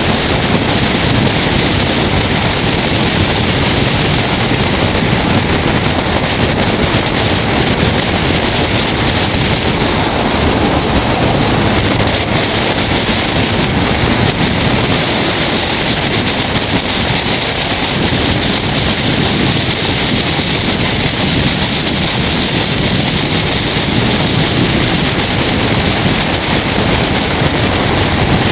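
Loud, steady rush of wind and road noise on a hood-mounted camera of a race car at track speed.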